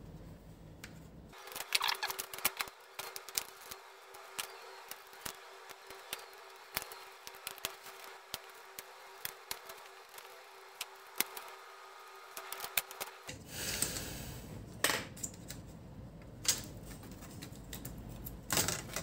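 Many quick small clicks and taps of a screwdriver working the screws out of a laptop motherboard and touching the metal chassis. A few louder knocks come near the end as the board is lifted out.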